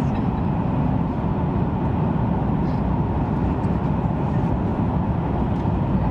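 Steady rumble of an SRT high-speed train running, heard inside the passenger cabin.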